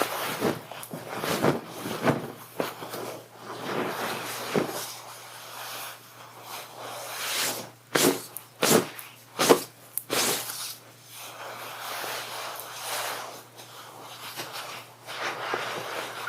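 Heavy cloth of a cloak rustling and swishing close to the microphone as it is lifted off and handled. The strokes are irregular, with a run of sharper swishes about halfway through.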